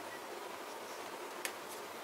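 Steady low hiss with a single light click about one and a half seconds in and a fainter one shortly after, the kind of small tick made by handling an item during unboxing.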